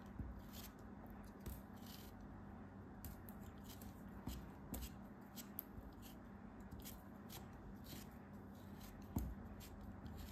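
Craft knife blade slicing through molded kinetic sand: a run of short, crisp scraping strokes, one after another at an uneven pace, with a soft low thump about nine seconds in.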